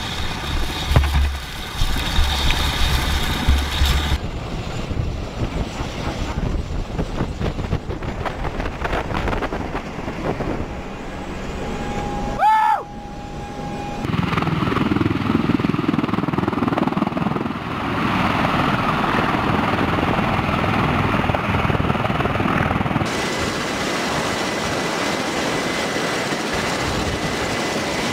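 MV-22 Osprey tiltrotor aircraft running, its twin turboshaft engines and proprotors giving a loud, steady noise that changes character across several cuts, including a stretch heard from inside the cabin. A brief rising whine sounds about halfway through, and a thin steady high whine runs through the last few seconds.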